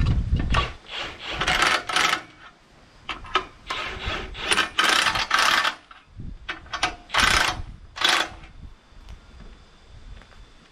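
Metal parts being handled, scraping and clanking in irregular bursts with a few sharp knocks, the sharpest ones near the end.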